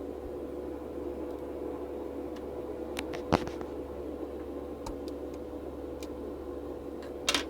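Steady background hum with a few small clicks and taps from handling the phone and a small tool, the sharpest a little under halfway in, and a brief scratch near the end.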